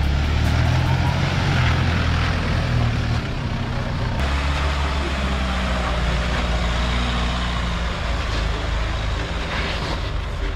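Mahindra Thar 4x4 engine running steadily under load as the vehicle drives through a shallow water crossing, a low engine drone with a constant hiss of water and tyres over it. The sound changes abruptly about four seconds in, then carries on steady.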